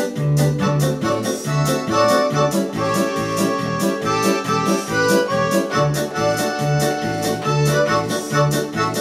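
Ketron arranger keyboard playing a krakowiak, a Polish dance tune: a melody over a bouncing, evenly repeating bass line and a steady beat.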